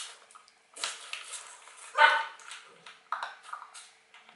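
Barbet puppies eating kibble from a stainless steel bowl: crunching and clatter against the bowl, with one short, sharp bark about two seconds in.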